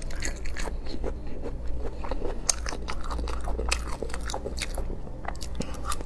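Close-miked chewing of a mouthful of spicy braised beef skin and offal: irregular wet, sticky smacks and crunchy clicks, over a steady low hum.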